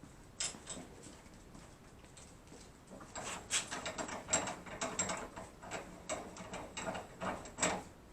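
Metal parts being worked by hand: a single click, then a few seconds of irregular metallic clicks and rattles.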